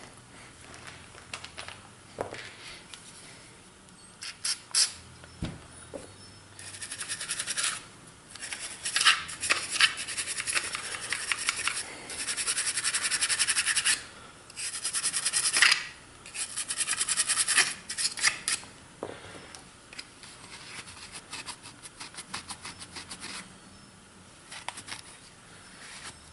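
Rapid back-and-forth scrubbing on the Glock 30's polymer grip back strap, working out the dirt left in it, in bursts of a second or two with short pauses; the strokes are busiest in the middle.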